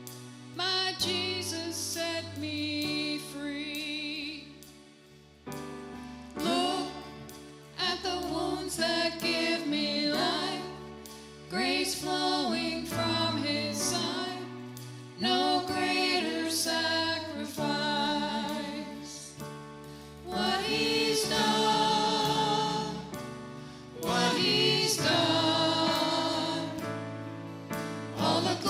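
A vocal group singing a gospel-style worship song in sustained, vibrato-laden phrases over steady instrumental accompaniment with held bass notes.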